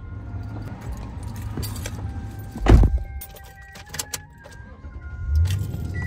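Getting into a Toyota pickup's cab: keys jangling, small clicks and faint steady chime tones, with the driver's door shutting in one loud thump about three seconds in. A low rumble swells near the end.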